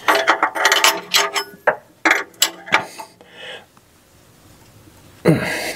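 Steel wrench working an oxygen sensor tight in the exhaust pipe: a quick run of clicks and metal clinks as the wrench is fitted to the sensor's hex and pulled round, then a pause and one louder short burst near the end.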